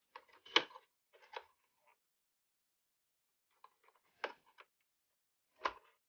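Light clicks and taps of small tools and PlayStation 5 console parts being handled during disassembly. They come in a few short clusters, with the sharpest knock near the end.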